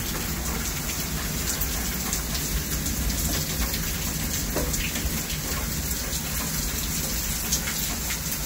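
Heavy rain pouring down, a steady dense hiss of a downpour hitting pavement and plants.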